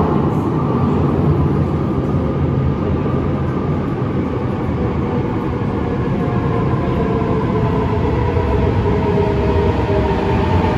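Naples Metro Line 1 train arriving through the tunnel into an underground station: a steady rumble of wheels and motors that grows louder near the end, with a faint whine that slowly falls in pitch.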